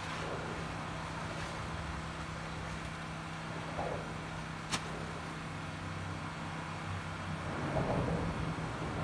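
Steady road traffic noise with a constant low hum, and one sharp click about halfway through.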